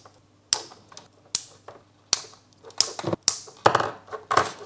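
Lever-type WAGO splicing connectors snapping shut on wires, a run of sharp single clicks about every 0.7 s, followed near the end by softer rustling of wires being handled.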